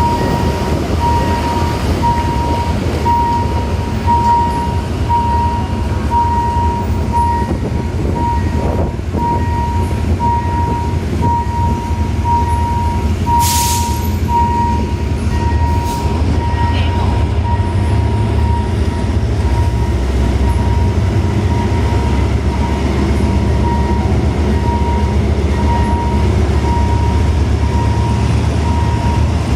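State Railway of Thailand passenger train rumbling up to and into a level crossing, the low rumble growing heavier in the second half, while a crossing warning signal beeps a steady tone about one and a half times a second. A short hiss about halfway through.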